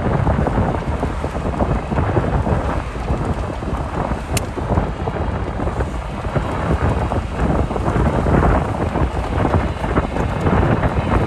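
Heavy rain with rumbling thunder, a dense and steady noise weighted to the low end, with one sharp click about four seconds in.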